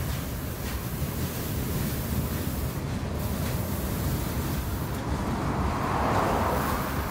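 Freight train of boxcars and covered hoppers rolling past, a steady low rumble of wheels on the rails. About five seconds in a car passes close by, adding a swell of road noise over the rumble.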